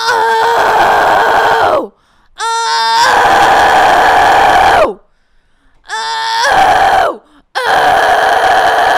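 A woman's extreme-metal pitch scream held on a high note, four times over: each starts as a clear, bright tone and breaks into a rough, distorted scream, then drops in pitch as it cuts off. The third is short and the last is still going near the end.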